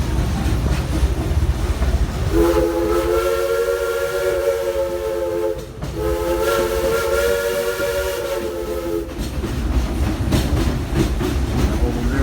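Steam locomotive whistle blowing two long blasts of about three seconds each, a chord of several tones sounding together, over the steady rumble and clatter of the train running.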